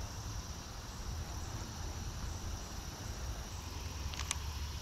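Outdoor ambience: a steady high-pitched insect drone over a low rumble, with two sharp clicks just after four seconds in.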